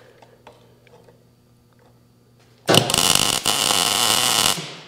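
Electric arc welding: after a short quiet stretch with a low hum, the arc strikes nearly three seconds in and crackles and sizzles steadily for about two seconds, then stops.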